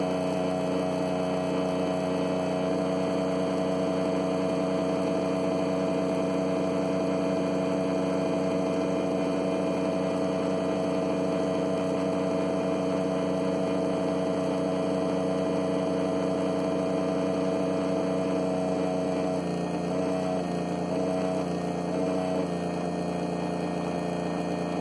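Electric radiator cooling fan, driven through its PWM-controlled fan control module, running at full speed at 100% duty cycle with a steady hum. About twenty seconds in, its pitch drops in a few distinct steps as the duty cycle is turned down, the stepwise response typical of such fan control modules.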